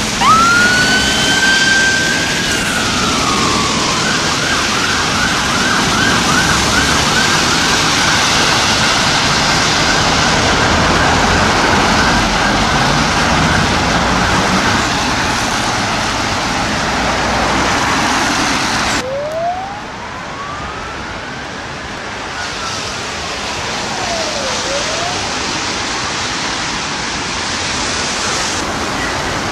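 Ambulance response vehicle siren: a wail that sweeps up and slowly falls, then switches to a fast yelp of about two rising sweeps a second, fading out after about 15 s. After a sudden cut, a fainter, more distant siren wails slowly up and down.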